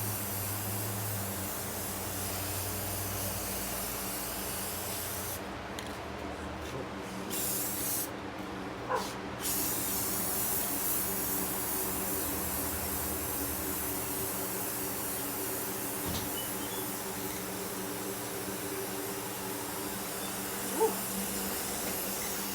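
Aerosol spray can of clear coat hissing as it sprays a car hood, with two short breaks about six and eight seconds in.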